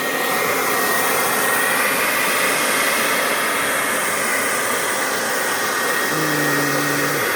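Blow dryer, modified with a narrowed nozzle, running steadily at full blast with a thin high whine over its rush of air.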